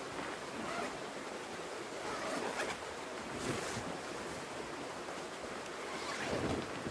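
Tent fabric rustling a few times as the tent door is pulled and handled, over a steady rushing noise.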